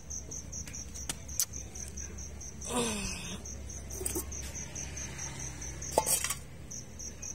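Cricket chirping in a steady high pulsed trill, about six pulses a second, falling silent for a few seconds mid-way. A brief falling voice sound comes about three seconds in, and a sharp click near six seconds.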